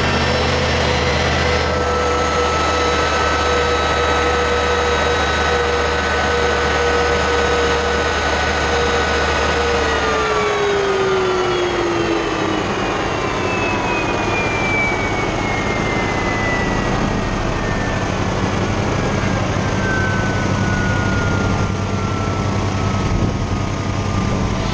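J34 turbojet running steadily, then throttled back about ten seconds in: its low rumble drops away and its whine falls slowly in pitch as it spools down, over a constant rush of exhaust and water.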